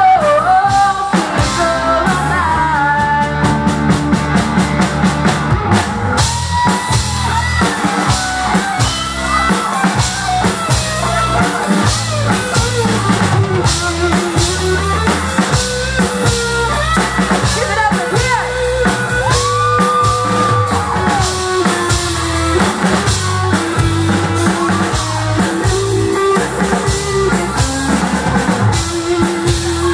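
Live rock band playing a song: drum kit, guitars and bass, with a lead vocalist singing over them.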